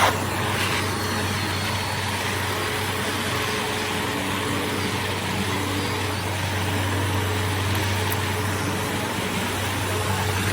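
Carpet-cleaning machine running steadily: a constant low motor hum under a broad hiss, with a brief knock right at the start.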